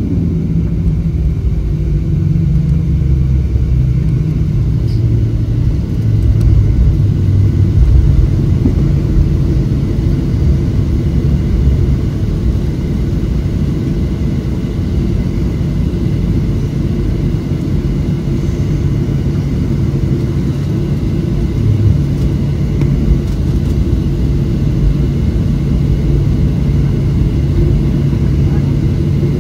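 Cabin noise inside a Boeing 737-700 with its CFM56 engines running: a steady low rumble with a faint engine hum, swelling slightly a few seconds in.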